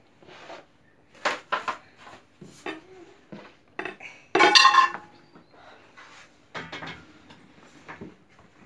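Dishes and cutlery being handled on a table: a run of separate clinks and knocks, with one louder, ringing clatter about four and a half seconds in.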